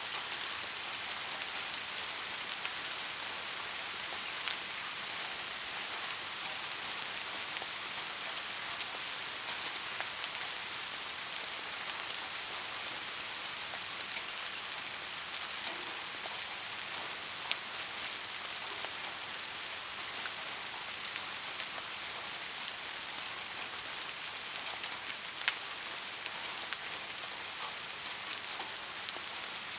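Steady rain falling, an even hiss with now and then a single louder drop striking a surface.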